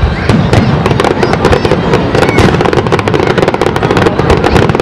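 Aerial firework shells bursting in a dense, unbroken barrage of overlapping bangs and crackles.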